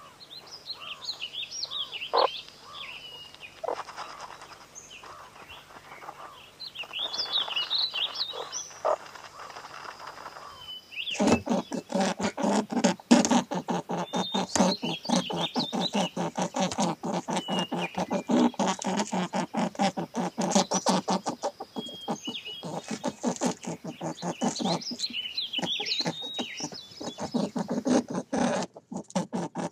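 High chirping calls, then from about a third of the way in a loud, dense run of rapid crackling clicks from a tassel-eared (Abert's) squirrel rummaging and feeding in dry pine litter.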